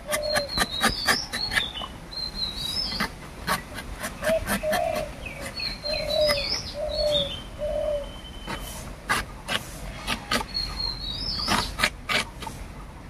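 Boti blade slicing through the thick rind of an unripe jackfruit in quick crisp strokes, heard as a string of short clicks. Birds call throughout: a high, repeated chirping call and some low short calls.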